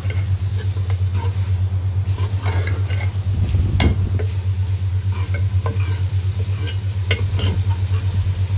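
A metal ladle stirring and scraping radish pods and masala in an aluminium pot, with scattered clinks against the pot and light sizzling as the vegetables fry dry, over a steady low hum.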